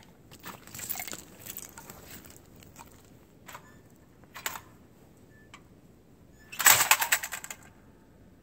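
Handling noises from a shotgun being readied and from clothing: scattered light clicks and rustling, with two sharper clicks near the middle. The loudest part is a brief rattle of rapid clicks about seven seconds in.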